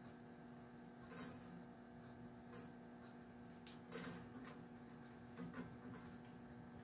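Faint metal clicks and clinks, a handful spaced a second or so apart, as the screws of a lathe's spindle spider are turned in by hand against the stock, over a low steady hum.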